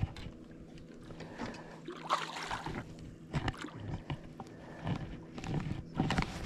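Water splashing and sloshing at the side of a boat as a northern pike is held by the tail in the water before release, with several short irregular splashes and knocks over a faint steady low hum.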